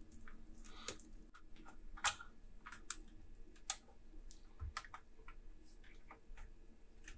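Scattered, irregular clicks and light taps of plastic and metal as a laptop keyboard is pressed and fitted into its top case.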